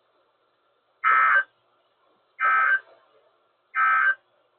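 Three short bursts of Emergency Alert System digital data tones on a NOAA Weather Radio broadcast, about a second and a half apart: the end-of-message signal that closes the weekly test.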